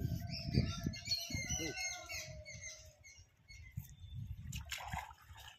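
Small birds chirping in quick bursts for the first two seconds or so, over water splashing in a shallow pond; a few sharper splashes come near the end.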